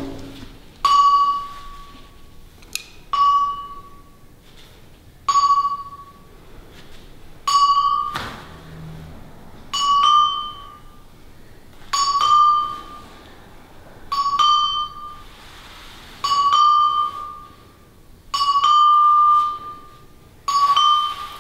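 A bell-like note at one steady pitch sounds about every two seconds, about ten times. Each note starts sharply and rings for about a second before it stops.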